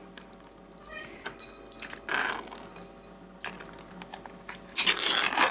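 Brine from tins of anchovies being drained into a pot: liquid pouring and splashing in two short bursts, about two seconds in and a louder one near the end, with a few light clicks of tin before them.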